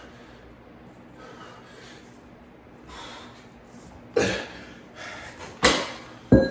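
A man breathing hard after a burnout set of chest flies: soft breaths at first, then three loud sudden sounds in the last two and a half seconds, the last one short and sharp.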